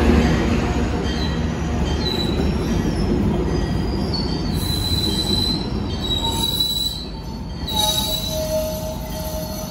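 Tri-Rail double-deck passenger coaches rolling past on the rails with a steady low rumble. Thin, high-pitched squeals come in about four seconds in and come and go for several seconds.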